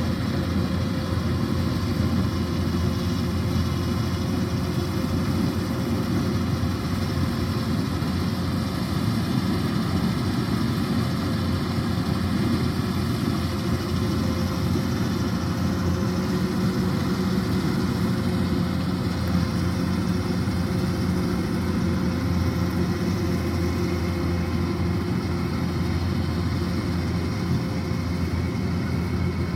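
Kubota DC-105X combine harvester's diesel engine running steadily under load, with the even drone of its working machinery.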